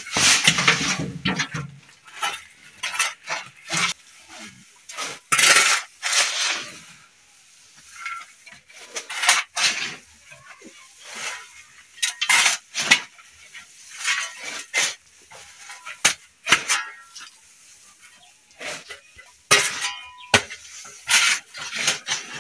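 Metal shovels scraping and scooping through a heap of sandy soil mix, in irregular strokes with clinks of the blades on the ground.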